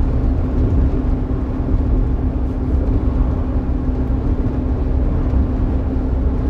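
Iveco Eurocargo lorry's diesel engine and tyre noise heard from inside the cab while driving: a steady low rumble with a constant hum.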